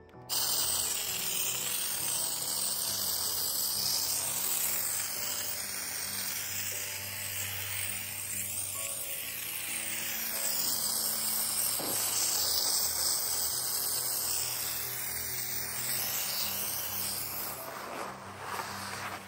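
A motorised appliance running steadily with a loud whir, cutting in abruptly at the start, over background music.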